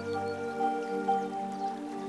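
Background music: slow, held chords with a higher melody line entering about half a second in.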